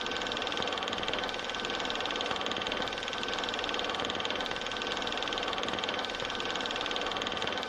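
A steady, unchanging mechanical hum with a few faint whining tones running through it.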